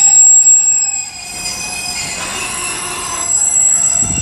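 Container freight train's wagons rolling slowly past with a loud, high-pitched squeal of several steady tones from the wheels and brakes as the train slows for a red signal. The squeal is loudest in about the first second, dips, and swells again near the end.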